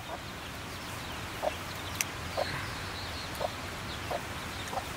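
Chickens clucking, single short clucks about once a second, over a steady hiss. One sharp crack comes about two seconds in.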